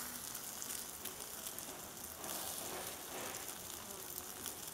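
Chicken wings sizzling on a charcoal grill as they are basted with barbecue sauce: a steady, crackling hiss.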